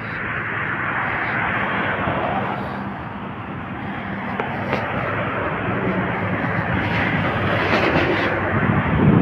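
Highway traffic with heavy trucks passing: a steady engine drone and tyre noise, getting louder near the end as a vehicle passes close by.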